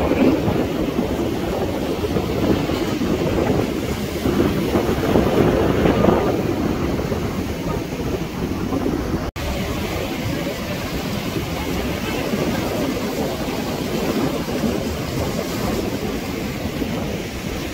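Sea wind buffeting the microphone over surf washing against lava rocks, a steady rushing noise; it cuts out for an instant about nine seconds in.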